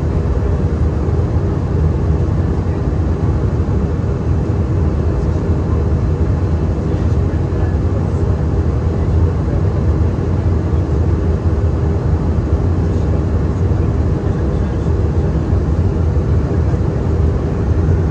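Steady cabin noise of an Airbus A320-200 airliner in flight: engine and airflow noise, a deep, even rumble that stays the same throughout.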